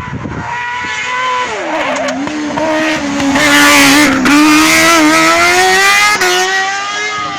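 Car cross buggy's high-revving motorcycle engine passing through a corner. Its pitch drops as it slows and shifts down about a second and a half in, then climbs steadily as it accelerates out. It is loudest in the middle, with an upshift about six seconds in.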